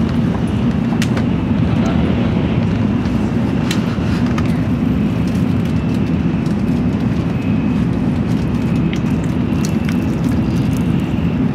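Steady low rumble of a Tokaido Shinkansen bullet train running at speed, heard from inside the passenger car. Scattered small clicks of chopsticks and a plastic bento case on the tray table.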